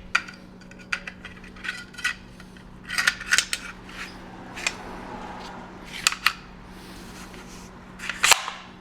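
Pneumatic staple gun being loaded and adjusted: irregular metallic clicks and clacks from the staple strip, magazine slide and latch, with a louder snap near the end. A low steady hum runs underneath.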